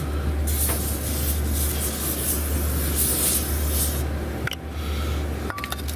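Aerosol cooking spray hissing in several pulses onto the hot grates of a lit gas grill for about four seconds, then stopping. A steady low hum runs underneath, with a couple of sharp clicks near the end.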